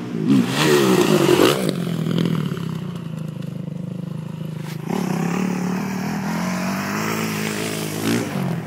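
Dirt bike engine revving hard, its pitch rising and falling loudly in the first couple of seconds, then running at steadier throttle, with another rev-up near the end.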